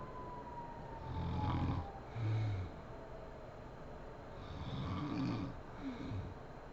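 A sleeping woman snoring: a long snore about a second in, a shorter one right after, then another long snore about four and a half seconds in, with quiet breathing between.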